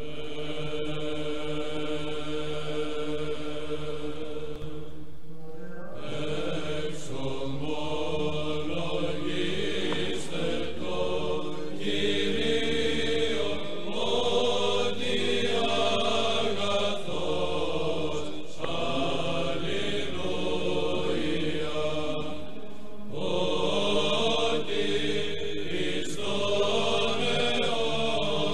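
Chanted vocal music in slow, long-held notes over a steady low drone.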